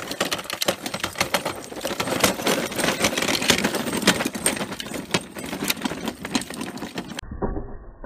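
Dog cart and harness hardware rattling and clinking as the harnessed dog walks and turns on grass: a dense run of quick clicks that breaks off about seven seconds in.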